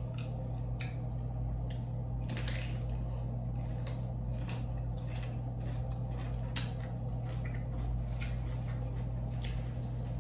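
Close-up chewing and wet mouth sounds while eating, with scattered small clicks and one sharper click about six and a half seconds in, over a steady low hum.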